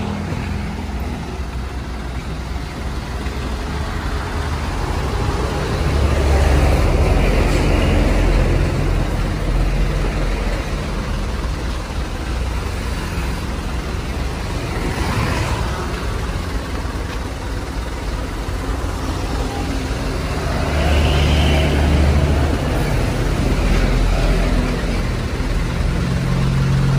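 Hino 500 truck's diesel engine idling with a steady low rumble, while road traffic passes twice, each pass swelling up and fading over a few seconds.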